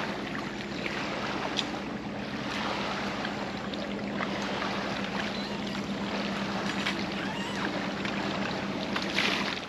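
Water splashing and sloshing as a catch of fish is released from the keepnet back into the river, with a few sharper splashes, a steady low hum and wind on the microphone.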